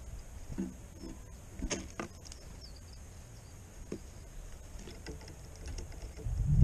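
A few soft taps and knocks from a European robin landing in a wooden and wire feeder tray and pecking at sunflower seeds, over a low wind rumble on the microphone. The wind gusts much louder near the end.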